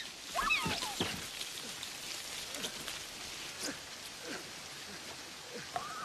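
Heavy rain falling steadily in a film storm scene. A few short gliding calls come about half a second in, and a fast warbling trill from the Dilophosaurus, the film's creature, starts near the end.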